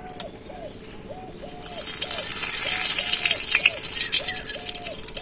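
Hot oil in a wok begins to sizzle loudly and steadily about two seconds in, as bay leaves and whole spices are dropped in for tempering (phoron). Before the sizzle, a bird calls repeatedly in a steady rhythm.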